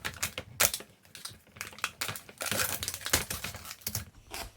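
A Pringles can being opened: its foil seal peeled back with irregular crinkling and tearing, and the clicks of handling the can.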